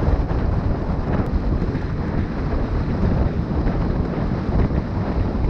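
Wind rushing over the microphone of a camera carried by a road cyclist riding along, a steady low rumble with no let-up.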